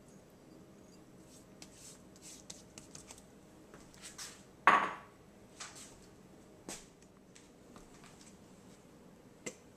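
Quiet kitchen handling sounds while raw pork ribs are rubbed with seasoning: scattered light taps and rustles, one sharp, briefly ringing clink of dishware a little before halfway, and two smaller knocks later.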